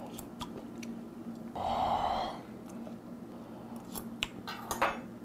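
Close-up eating sounds: a man chewing a mouthful of food with small wet mouth clicks, and one louder mouth sound about two seconds in.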